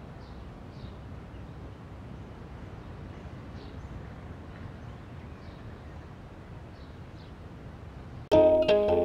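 Steady low outdoor background noise with a few faint, short bird chirps. About eight seconds in, a guitar suddenly starts playing plucked notes, much louder than the ambience.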